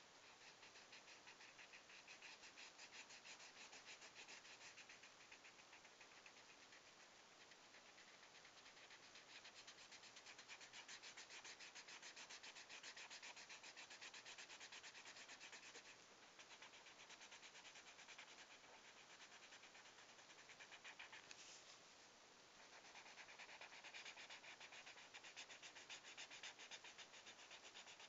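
Faint felt-tip marker rubbing on paper in quick back-and-forth colouring strokes, with two short pauses, about halfway and again about three-quarters through.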